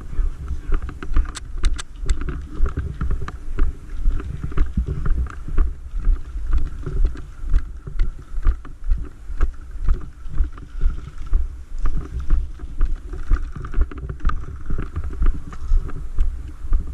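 Walking footsteps picked up through a body-worn camera, a steady rhythm of thuds a little under two a second, with gear rattling and rubbing against the mic on each step.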